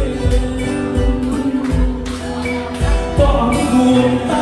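Live band music played through a large PA sound system: singing over acoustic guitar and keyboard, with a steady beat.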